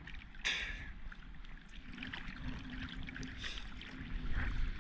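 Ocean water sloshing and trickling against a surfboard, with one short splash about half a second in.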